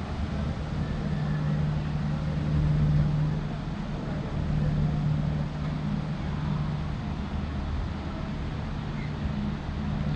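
Railway station platform ambience: a steady low mechanical hum over a wash of background noise, swelling a little in places.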